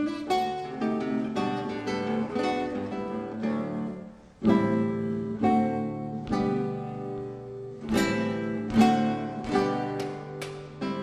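Background music on acoustic guitar, plucked and strummed notes, starting suddenly out of silence, with a brief dip about four seconds in before it carries on.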